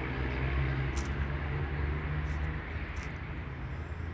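Steady low outdoor background rumble, with three short high hissing chirps about one, two and a quarter, and three seconds in.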